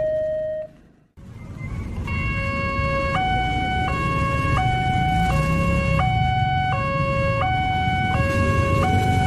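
Railway level-crossing warning alarm sounding an electronic two-tone high-low chime, each tone held about 0.7 s and repeating steadily, with a low road rumble beneath. Another crossing alarm's tone cuts off just before a moment of near silence about a second in, and the chime starts after it.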